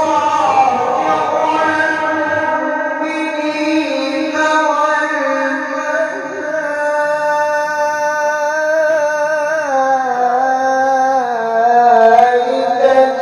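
A male qari reciting the Qur'an in a melodic, high-pitched style into a hand-held microphone, holding long ornamented notes. About ten seconds in, the line slides down in pitch.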